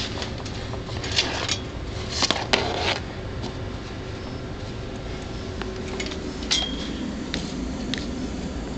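Light clicks and clatter of small hard objects being handled on a hard surface. A few louder knocks come in the first three seconds and another a little after the middle, over a steady background hum.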